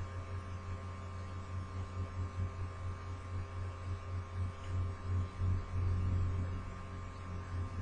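Steady low electrical hum, swelling slightly in loudness, with a faint high steady whine above it.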